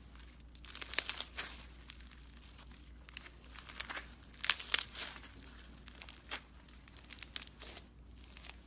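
Slime being squeezed and stretched by hand, giving off irregular crackling and crinkling pops. The pops come in clusters, loudest about a second in and again around the middle.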